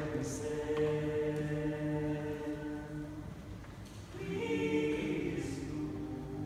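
Unaccompanied vocal trio singing in harmony: a long chord is held for about three seconds, it fades, and a new chord starts about four seconds in.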